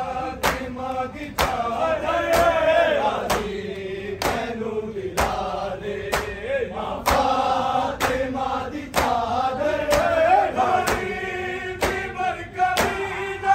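A group of men chanting a Punjabi noha in unison, with sharp chest-beating (matam) slaps about once a second in time with it.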